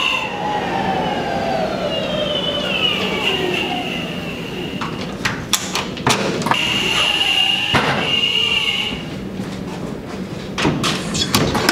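Electric skateboard's motor whine falling in pitch as the board slows to a stop, followed by clicks and knocks of a hotel room door being unlocked and opened. A steady high tone sounds for a couple of seconds in the middle, and a few more door clicks come near the end.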